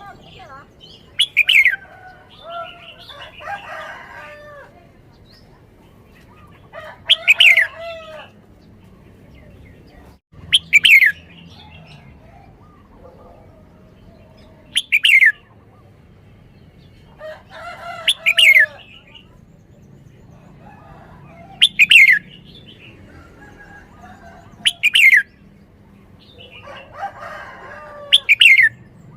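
Red-whiskered bulbul singing: short, loud whistled phrases of falling notes, repeated eight times about every three to four seconds, with softer chattering notes between them.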